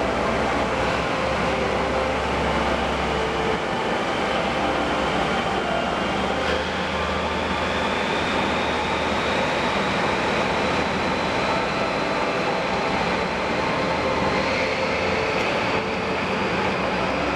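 Container freight train's wagons rolling steadily past, a continuous rumble of wheels on rail. A faint high whine rises slowly in pitch across the passage.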